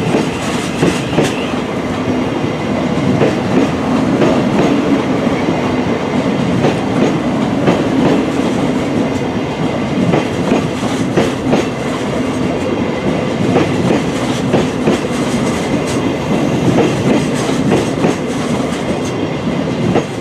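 Thameslink Class 700 electric multiple unit moving past at close range: loud steady running noise with a low hum, and frequent clicks and knocks from the wheels crossing rail joints.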